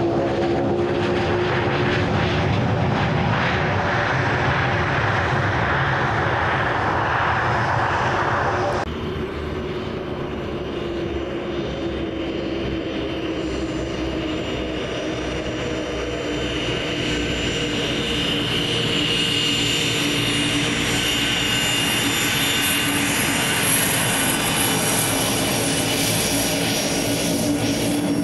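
Twin Honeywell TFE731 turbofans of a Gulfstream G150 business jet. For about the first nine seconds there is a loud rushing jet noise as the jet rolls down the runway. After an abrupt cut comes a steadier, quieter engine whine at taxi power, whose high whining tones grow stronger in the second half as the jet taxis closer.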